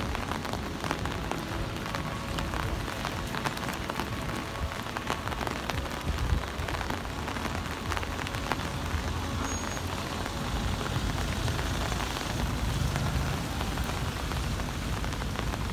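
Heavy rain falling steadily, a dense patter of drops hitting surfaces, with a low rumble underneath.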